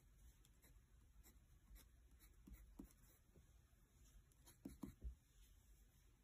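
Faint scratching of a wax crayon being stroked back and forth across sketchbook paper, with a few short, louder ticks past the middle.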